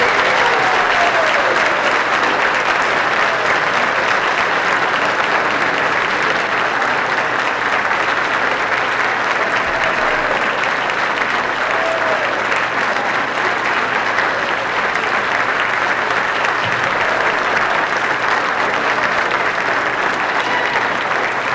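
A large seated audience applauding at length, a dense steady clapping that eases slightly near the end, with a few voices calling out within it. It is the ovation greeting the announcement that a bishop has been elected.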